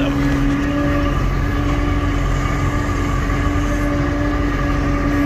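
Loader tractor's engine running, heard from inside the closed cab, with a steady hum over a low rumble that swells slightly about a second in.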